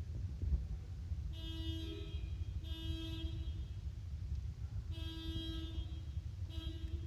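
A vehicle horn sounding four times, each honk about a second long at a steady pitch, over a steady low rumble of traffic.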